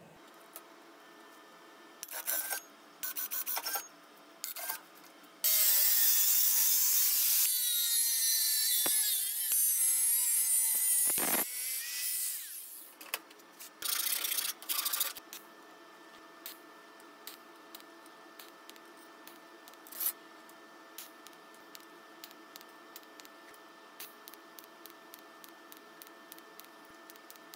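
Metalworking on stainless steel: several short bursts of a power tool, then a longer run of about seven seconds whose pitch wavers, with a sharp hit near the end of it. Afterwards a faint steady hum with light ticks.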